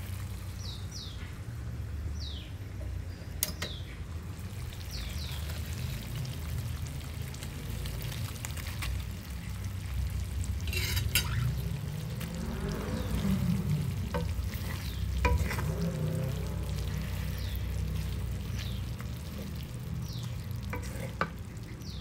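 Squid, sliced potato and onion sizzling in oil in a granite-coated wok while a wooden spatula stirs and scrapes through them, with a few sharp clicks of the spatula against the pan. A steady low hum runs underneath.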